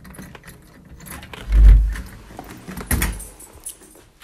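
Key turning in a brass doorknob lock, with small metallic clicks and the jingle of the key ring. There is a loud low thump about a second and a half in and a weaker one near the three-second mark.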